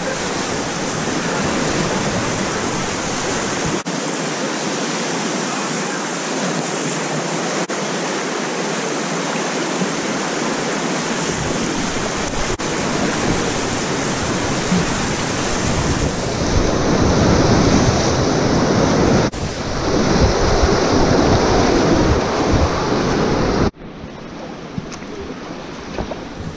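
Whitewater rapids rushing and splashing around a packraft running through them, a loud steady wash of water that grows louder in the second half and drops off suddenly near the end to the quieter sound of flat water.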